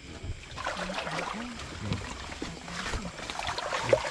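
Water splashing and sloshing, with faint voices talking in the background.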